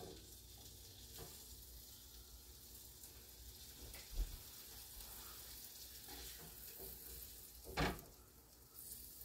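Food sizzling faintly and steadily in a frying pan, with a low thud about four seconds in and a sharper knock near the end.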